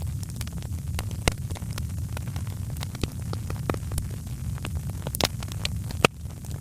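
Wood fire crackling in a fireplace: frequent sharp pops and snaps over a steady low rumble, with one loud pop about six seconds in.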